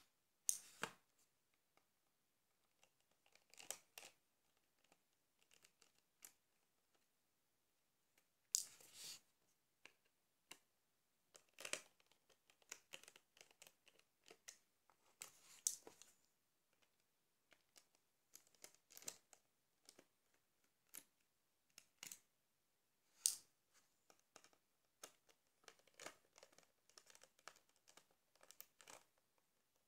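Faint, scattered clicks and short scrapes of a Nokia 1100's plastic housing parts being handled and pried apart by hand, with a few louder clacks.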